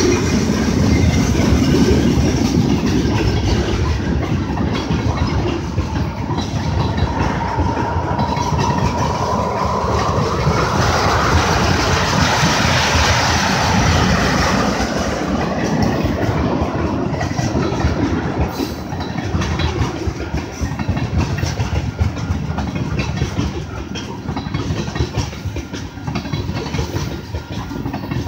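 Freight cars of a long mixed freight train rolling past: boxcars, tank cars and covered hoppers, their wheels clacking steadily over the rail joints. A thin whine rises in pitch roughly a third of the way in.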